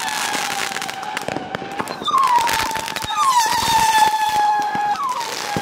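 Fireworks going off close by: long piercing whistles, each starting with a short bend, then holding a steady pitch for a few seconds, one after another. Underneath is dense crackling and sharp cracks.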